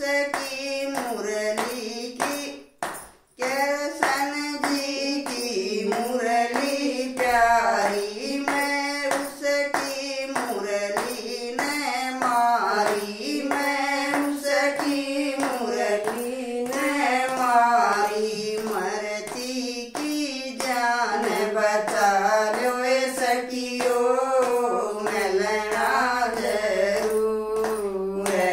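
Women singing a Haryanvi devotional Krishna bhajan, keeping time with steady hand clapping. The singing breaks off briefly about three seconds in.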